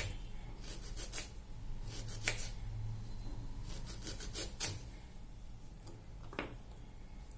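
A string of short, irregular scraping and rubbing sounds from thin slices of fresh ginger being handled and put into a bowl of lemon slices.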